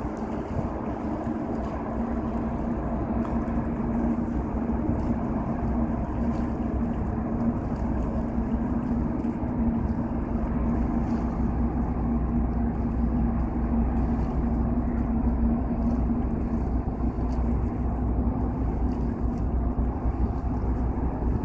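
Boat engine running steadily with a constant low hum, over wind and water noise.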